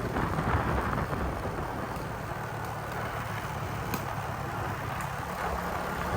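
Honda XRM motorcycle's single-cylinder four-stroke engine running steadily while riding. Its exhaust has a small pinhole crack that makes it a little noisier.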